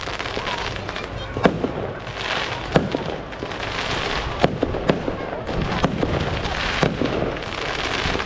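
Aerial fireworks display: shells bursting in sharp bangs about every second or so, a couple in quick succession, over a continuous hiss.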